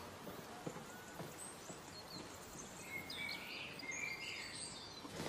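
Quiet outdoor garden ambience with small birds chirping, the chirps clustered in the second half. A few faint light ticks early on, like crockery on a table.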